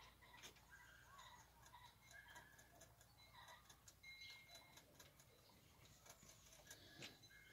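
Near silence: faint outdoor ambience with scattered soft ticks and clicks.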